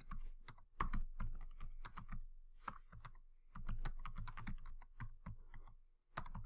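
Typing on a computer keyboard: a fast run of key clicks, with a brief pause about halfway through.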